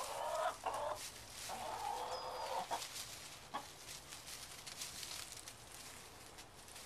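Domestic hens clucking in several drawn-out calls during the first three seconds, with sharp taps and light scratching as they peck and scratch for crickets on the ground; one louder tap about three and a half seconds in.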